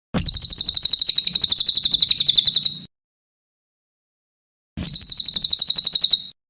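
Cililin songbird singing two fast trills of rapid high notes, about a dozen a second, the first nearly three seconds long and the second about a second and a half, with a pause between.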